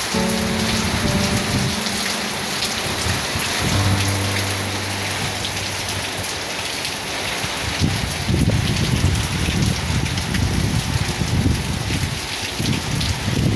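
Heavy rain pouring steadily in strong wind, with gusty low rumbling building from about eight seconds in.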